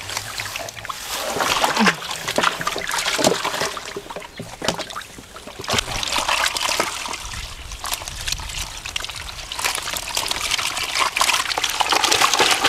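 Water splashing and trickling, with scattered sharp knocks.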